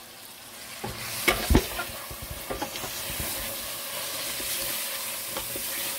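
Raw chicken pieces sizzling as they start to fry in a hot onion-tomato masala in a steel pot, stirred with a wooden spoon. A few sharp knocks come about a second and a half in, then the sizzling grows over the first couple of seconds and holds steady.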